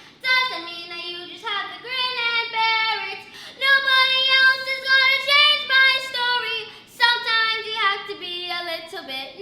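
Solo unaccompanied voice singing a melodic line of held notes in a bright, forward, ringing tone, as a demonstration of bright 'pingy' vocal placement.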